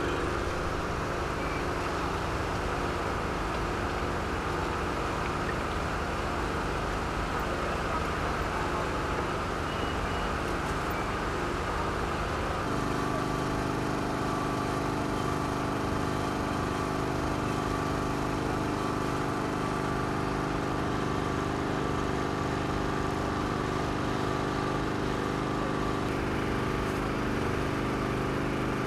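Engines running steadily, a constant drone with an even hum. About twelve seconds in the sound changes abruptly to a different, more tonal engine drone that holds to the end.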